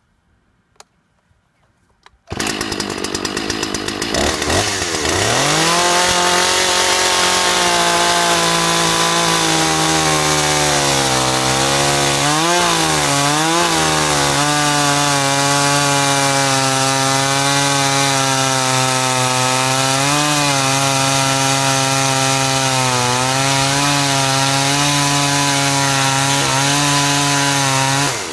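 Two-stroke chainsaw on a chainsaw mill starting about two seconds in, revving up over a few seconds, then running at steady high speed as it cuts through a log, with a brief wavering in pitch partway through. It falls off to a lower level right at the end.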